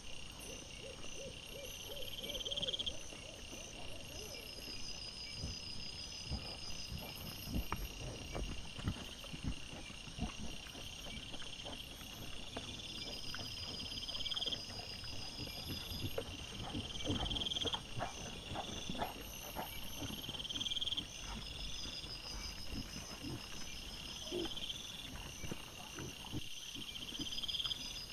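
Night insects such as crickets chirping in repeated trains every second or two, with scattered rustling and crunching of dry leaf litter as a wild boar piglet roots along the ground, busiest in the middle. A short series of low pulsed calls near the start.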